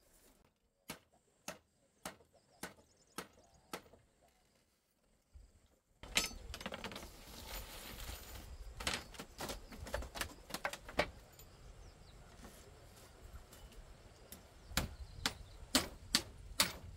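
Repeated sharp knocks of a hand tool striking, in runs of about two a second. After about six seconds the background noise is suddenly louder, the knocks come irregularly, and a quicker run follows near the end.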